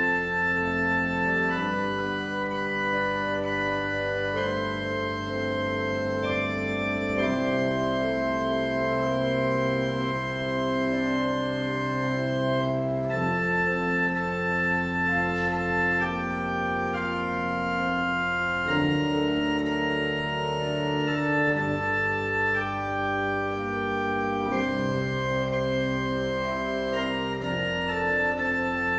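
Church pipe organ playing slow, sustained chords over a held bass, the harmony changing every second or two; some held upper notes pulse with a tremolo.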